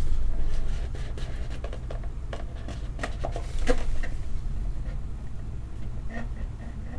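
Trading cards and their packaging being handled, with scattered small clicks and scrapes over a low steady hum.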